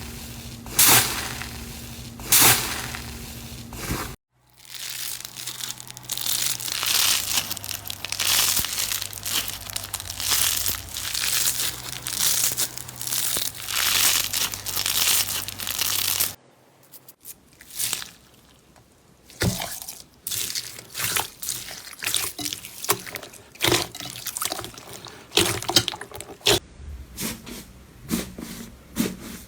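Slime being handled and pressed, making crackling and popping sounds in three cut-together clips: a few sharp loud pops at first, then about twelve seconds of dense, continuous crackle, then scattered crackles that grow busier toward the end.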